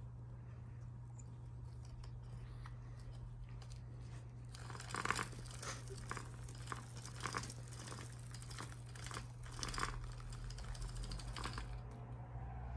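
Kittens at play making irregular scratching and crinkling noises, a quick run of them from about four seconds in until near the end, over a steady low hum.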